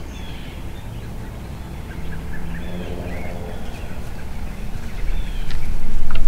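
Faint bird chirps over a low rumble that swells loud near the end, with a couple of sharp clicks at the very end.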